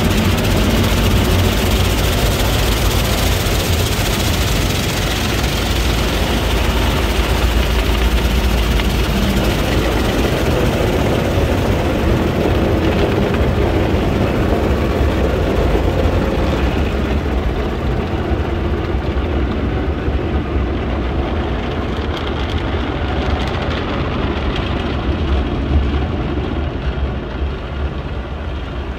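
Automatic car wash heard from inside the car: a steady wash of water and foam spraying over the windscreen and body, over a low machinery rumble. The hiss eases off about two-thirds of the way through.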